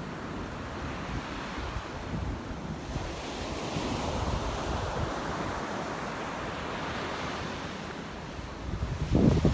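Sea surf washing onto the beach, one wave swelling in about three and a half seconds in and easing off, with wind buffeting the microphone near the end.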